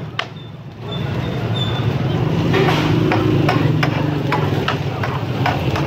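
Metal spatula tapping and scraping on a flat steel griddle as an egg burger patty is pressed and turned. The sharp clicks come in an uneven series, more often in the second half, over a steady low hum.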